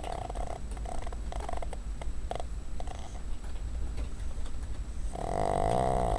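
Pet dog snoring in her sleep. Soft short snuffling breaths come first, then a louder, longer snore begins about five seconds in.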